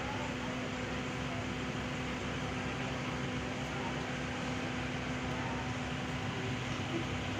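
Steady machine hum with a constant low tone over even background noise, unchanging throughout.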